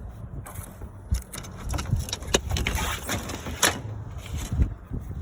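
Bungee-cord hooks clicking and knocking against a trailer's mud-flap bracket as the flap is fastened, about five sharp clicks over a low rumble.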